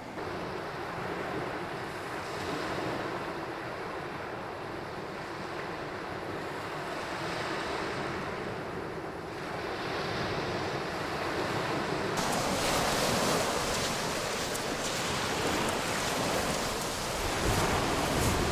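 Sea waves washing onto the beach in a steady, swelling hiss. About twelve seconds in the sound turns abruptly brighter and hissier, and near the end wind rumbles on the microphone.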